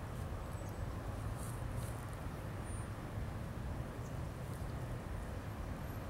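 Low, steady rumble of an approaching diesel freight train, still some distance off.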